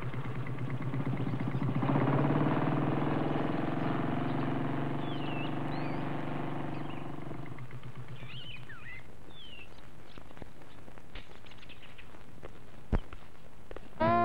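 Motorcycle engine running, a little louder about two seconds in, then switched off about seven and a half seconds in. Birds chirp after that, and a single sharp knock comes near the end.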